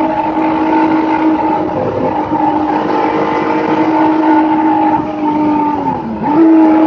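Race car engine at speed, heard from inside the cockpit, holding a steady high note over road and wind noise. About six seconds in the pitch dips briefly, then picks straight back up as the driver gets back on the throttle.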